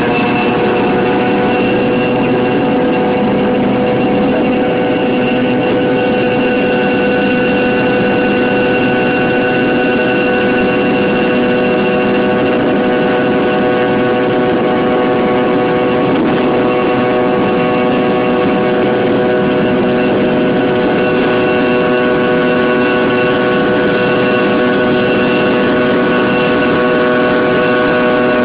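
Fokker 100's two rear-mounted Rolls-Royce Tay turbofans running at steady takeoff thrust, heard from inside the cabin during the takeoff roll. A loud, even engine noise carries several steady whining tones.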